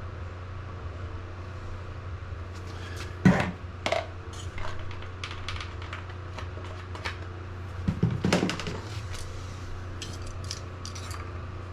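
Clinks and knocks of small hard objects being handled while working on a pit bike's oil fill and dipstick, with two louder knocks about three and eight seconds in, over a steady low hum.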